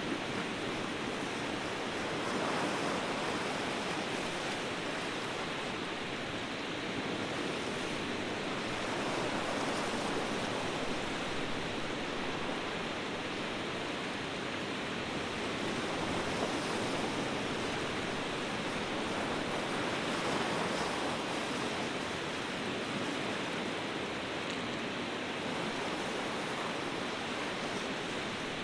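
Ocean surf: a steady wash of waves that swells gently every several seconds.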